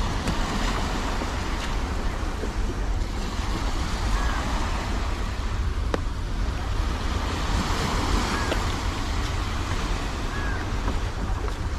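Steady wash of sea surf with wind buffeting the microphone, and a few faint short chirps now and then.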